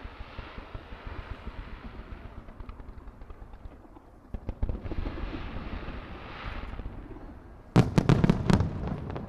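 Star mine fireworks bursting: two spells of dense crackling from many small shells, then a quick run of loud sharp bangs near the end.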